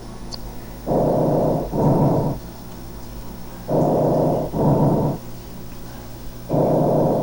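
Recorded tracheal breath sounds as heard through a stethoscope: three breaths, each an inspiratory rush of air followed by a slightly shorter expiratory one, about every three seconds. This is the glottic component of normal breath sounds, made by turbulent airflow through the narrowed glottis, heard over the larynx, trachea and large bronchi.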